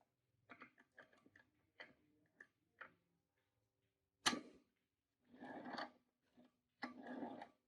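A run of light clicks, then one sharp knock about four seconds in, followed by two short rasping stretches over a low steady hum.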